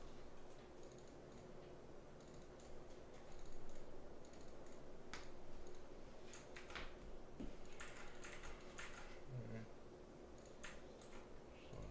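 Typing on a computer keyboard: irregular light key clicks and taps, in short clusters.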